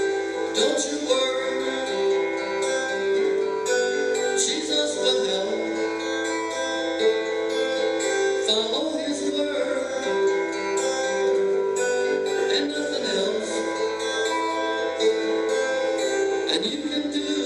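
Acoustic guitar strummed steadily, chords ringing in a live song.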